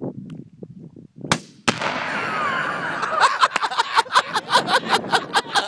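A rifle shot, then a fraction of a second later the heavy blast of about five pounds of Tannerite exploding target detonating, trailing off into a long loud rumble. From about halfway through, a fast regular pulsing of about five beats a second sits on top of the rumble.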